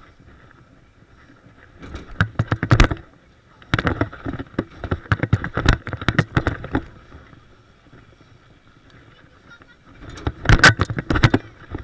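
Mountain bike riding over concrete skatepark ramps: the bike rattles and clatters in three spells, about two seconds in, from about four to seven seconds, and again about ten seconds in, with quieter tyre rolling between.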